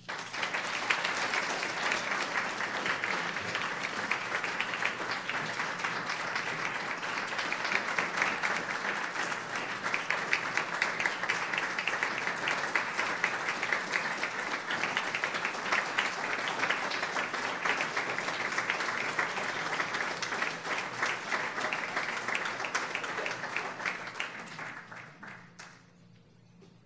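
Audience applauding: a long round of steady clapping that dies away near the end.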